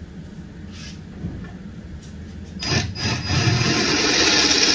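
Cordless drill boring a bolt hole up through the steel underbody of a car, starting suddenly a little under three seconds in and then running steadily as the bit cuts into the metal.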